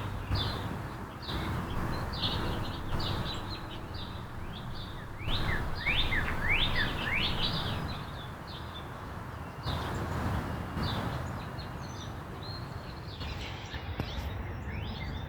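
Backyard songbirds chirping and calling over a steady low background rumble, with a run of quick downward-slurred notes around the middle.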